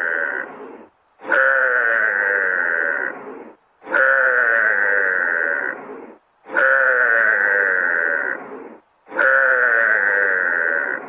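An animal's wavering call, about two seconds long, repeated in exactly the same form about every two and a half seconds, four times and the end of a fifth, like a looped recording.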